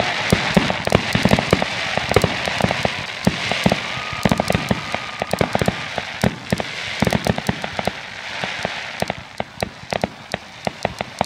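Aerial fireworks display: many sharp bangs going off in rapid, irregular succession over a continuous crackling hiss, easing slightly toward the end.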